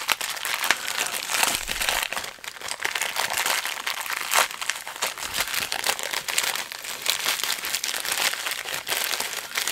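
Plastic packaging crinkling and crackling continuously as it is handled and unwrapped, with many small clicks and rustles.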